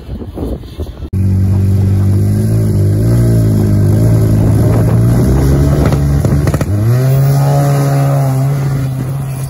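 Two racing snowmobiles revving hard at the start line, then launching: about seven seconds in, the engine pitch jumps up sharply and holds high as they accelerate away. Before that, a brief stretch of wind on the microphone ends in a sudden cut about a second in.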